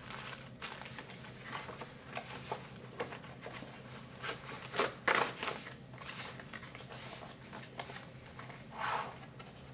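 Handling noise from a board game's parts: plastic bags crinkling, small pieces clicking and a cardboard box being closed, in irregular rustles and taps with the loudest about five seconds in. A faint steady low hum runs underneath.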